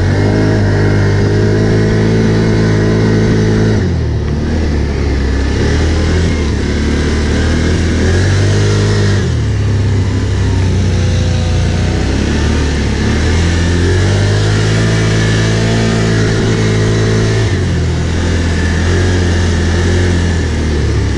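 Can-Am Outlander ATV engine running while riding, its note dropping and rising again several times as the throttle is eased and opened.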